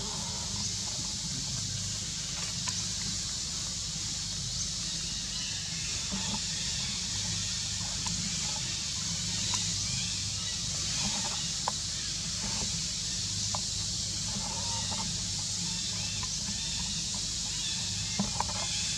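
Steady high-pitched insect drone with a low rumble underneath, broken by a few faint clicks.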